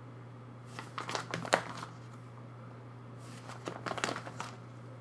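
Plastic card sleeves in a photocard binder crinkling and clicking as the pages are handled, in two short bursts about a second in and again past three seconds, over a steady low hum.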